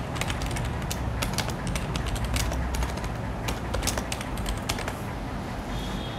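Irregular rapid clicking, several clicks a second, over a steady low hum.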